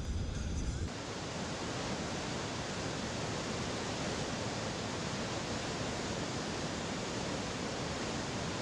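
Steady rush of river water pouring over a long low weir, starting about a second in after a short stretch of in-car sound.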